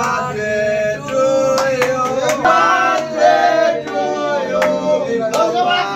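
Several male voices singing together, with scattered hand claps.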